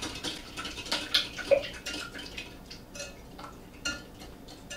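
Wire whisk beating eggs in a glass measuring pitcher, the wires clicking against the glass in quick, irregular strokes that thin out after about two seconds.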